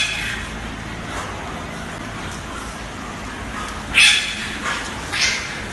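A dog barks twice in play, short high-pitched barks about four seconds in and again about a second later, over a steady background hiss.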